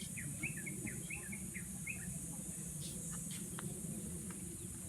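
A bird calling a quick run of short chirps, about four a second, for the first two seconds, over a steady high-pitched insect drone.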